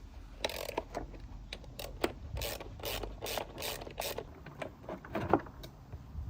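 Repeated short scraping strokes, about two or three a second, mixed with clicks and knocks of hand work.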